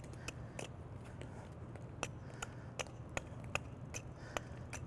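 A small hand axe striking an oak trunk in quick, light chopping strokes, about two or three a second, with a short pause about a second in. The blade is shaving the pink inner bark off to bare the sapwood.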